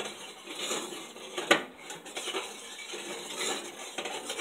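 Light clinking and rattling of metal kitchenware, with one sharper click about a second and a half in.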